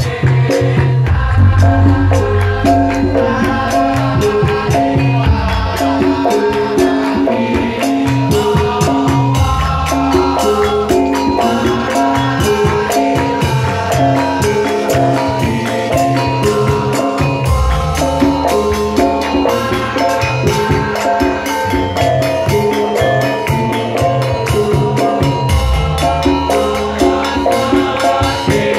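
Javanese gamelan music played live as an instrumental passage. Struck metal keys play repeating note patterns over drum and deep low strokes, with dense, rapid clicking percussion throughout.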